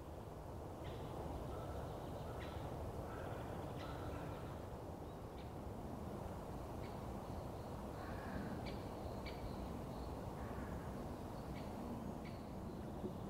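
Wild birds giving short scattered calls over a steady low background rumble in a spruce forest.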